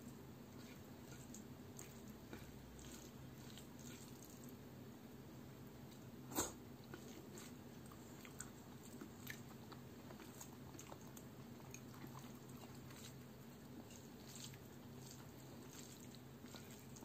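Fingers mixing soft rice with palak chicken curry on a plate: faint, soft squishes and small scattered clicks, with one sharper click about six seconds in, over a low steady hum.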